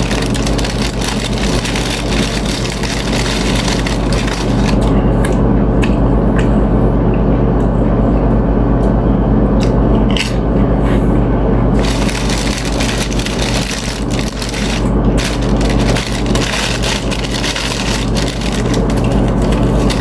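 Close-miked chewing and crunching of chips, a dense run of irregular crackling crunches, over a steady low hum.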